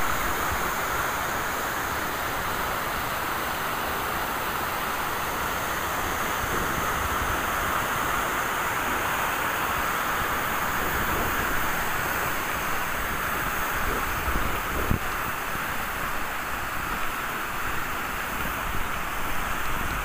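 Tall waterfall pouring onto boulders and into its plunge pool: a steady, unbroken rush of falling water. A few low gusts of wind hit the microphone near the end.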